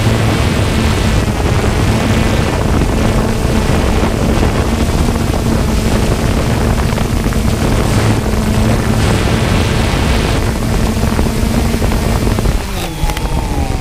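A quadcopter drone's rotors humming at a steady pitch over a rushing noise. A little before the end the hum cuts out and a wavering, gliding tone takes its place.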